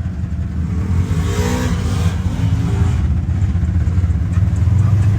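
Off-road vehicle engine running under way, with a rev that rises and falls in pitch about a second or two in.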